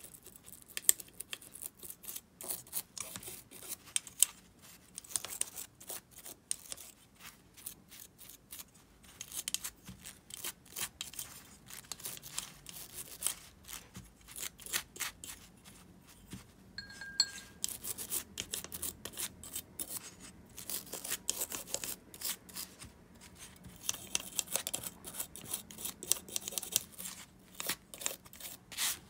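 Small metal parts of an Abu Garcia Ambassadeur 5500 DA baitcasting reel being scrubbed and handled while they are cleaned after disassembly: quick, irregular scratching strokes and sharp clicks in clusters, with a short ringing tone about 17 seconds in.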